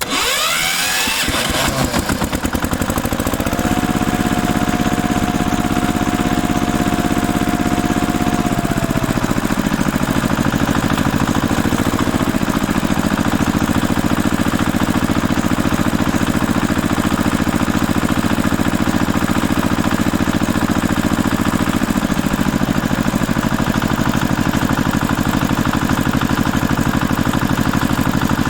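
Lawn tractor engine being started: it turns over and catches within about two seconds, then runs steadily. A high steady whine rides over the engine for several seconds after it catches, and the engine note shifts a few times.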